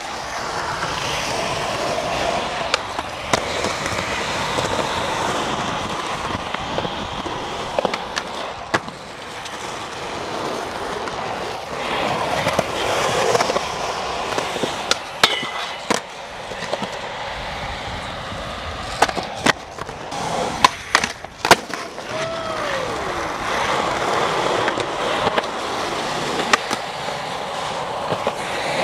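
Skateboard wheels rolling over smooth skatepark concrete in a steady rush, broken by sharp clacks and knocks of the board hitting the ground and ledges.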